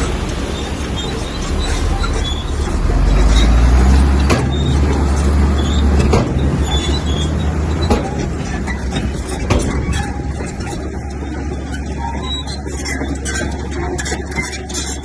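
Komatsu bulldozer's diesel engine running heavily under load, with sharp metallic knocks and clanks every second or two. The deep rumble swells about three to four seconds in, then settles to a steady level.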